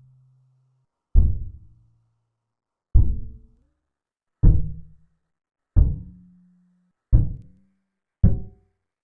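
Synthesized drum-like hit sound replayed slowed down, six deep thuds each with a short low ringing tone and a decaying tail. Its playback speed is being raised by hand, so the hits come closer together and the ring rises in pitch.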